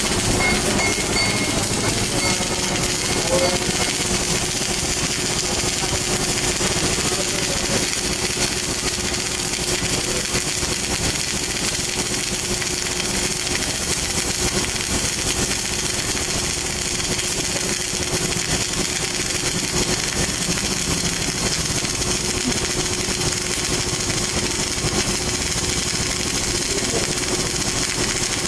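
MIG welding arc on steel (CO2-shielded wire feed) burning continuously: a steady, unbroken crackling buzz as the wire feeds into the weld pool.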